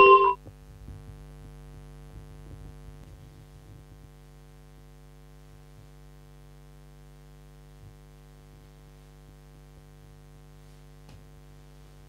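A short, bright chime at the very start, then a steady electrical hum with faint rustling in the first few seconds.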